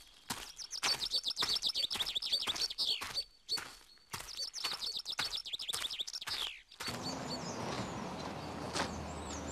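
A bird calling in quick runs of short, high, falling chirps, over crisp crunching footsteps on a dry dirt path. About seven seconds in, the steps give way to a steady outdoor background with a low hum, and the chirping picks up again near the end.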